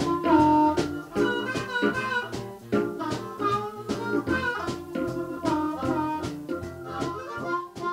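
Background band music with a steady beat, played live by a small group.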